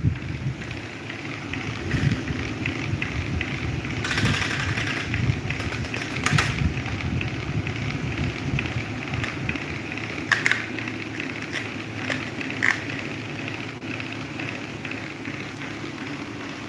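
Red electric table fan running steadily, its air moving with a low hum, with scattered light clicks or rattles, most often between about four and seven seconds in.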